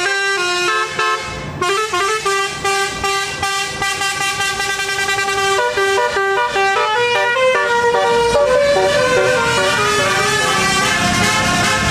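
Bus's multi-tone telolet (Basuri) horn playing a tune, several horn pitches sounding together and stepping quickly from note to note.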